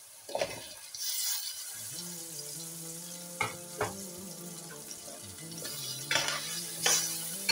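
Cut potato pieces dropped from a bowl into a pot of hot tomato masala, hissing as they land, then a metal spatula stirring them with several sharp clicks and scrapes against the pot. A steady low hum runs underneath from about two seconds in.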